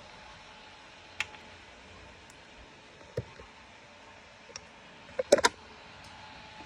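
A few scattered small clicks and taps from handling things on a bench, with a quick cluster of them about five seconds in, over a faint steady hiss.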